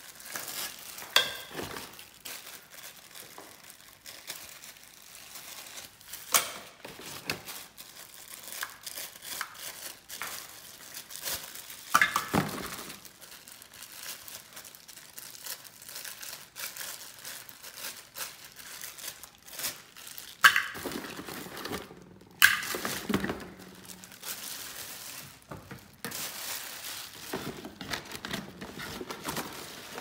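Plastic wrapping crinkling and a cardboard box being handled as a handheld vacuum cleaner is unpacked, with several sharp knocks and clatters scattered through.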